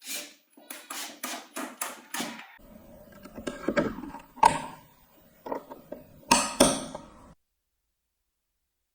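A quick run of hand knocks and taps, about three a second, then irregular knocks and handling of parts while a homemade washing machine is put together, with two loud knocks near the end before the sound cuts off suddenly.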